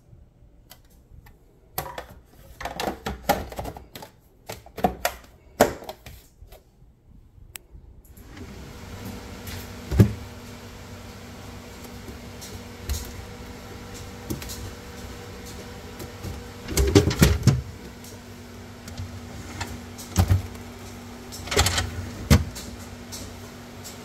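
Plastic clicks and knocks from the door bins and crisper drawers of a Samsung four-door French door refrigerator as they are lifted out, slid and snapped back into place. A steady low hum starts about a third of the way in and runs under the later knocks, which bunch together near the middle and again toward the end.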